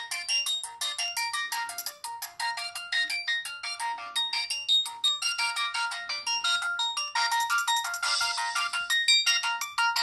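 Siemens SF65 clamshell phone playing a ringtone through its small built-in speaker: a fast, bright melody of short synthesized notes, often several at once, with no bass.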